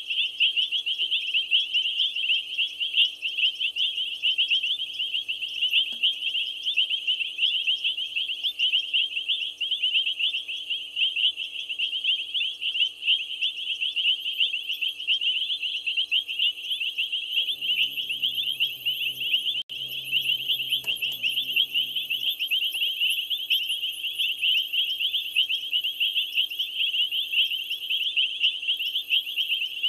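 Dense night-time chorus of small calling animals at a waterhole: high, rapid chirping with no break. A low hum with several tones joins it for a few seconds just past halfway.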